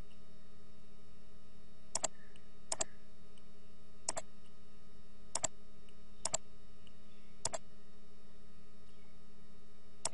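Computer mouse button clicking about seven times at irregular intervals, each click a quick press-and-release double, over a steady background hum.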